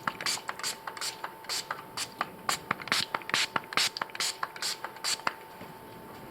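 Small hand trigger sprayer squirting 70% isopropyl rubbing alcohol onto a computer keyboard: quick hissing squirts about two to three a second, stopping about five seconds in.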